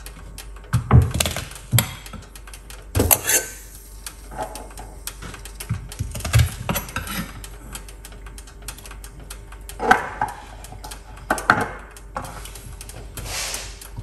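Garlic cloves being crushed and dropped into a saucepan of water: a series of irregular sharp cracks and knocks.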